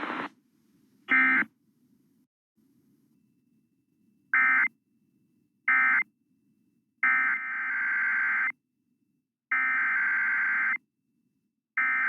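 Emergency Alert System SAME digital data bursts, a harsh two-tone warbling screech. First come three short bursts, the end-of-message code closing the previous alert. Then come three longer, evenly spaced bursts, the header of the next alert.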